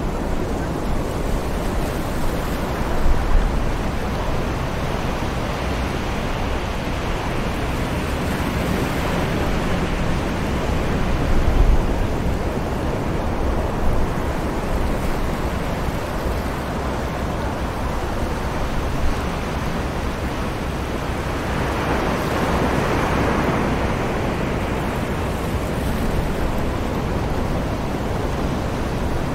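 Beach ambience of distant surf washing steadily with wind. A wave swells and recedes about two-thirds of the way through, and a few brief low gusts thump now and then.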